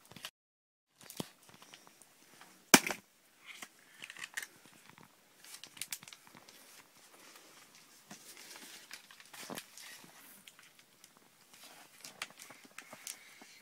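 Boots crunching and scuffing on packed snow with rustling of winter clothing, in scattered crackles, and one sharp knock about three seconds in.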